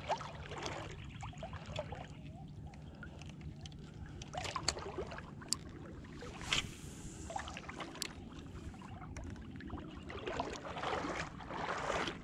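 Water sloshing around the legs of someone wading through shallow tidal water, with a few short splashes and clicks.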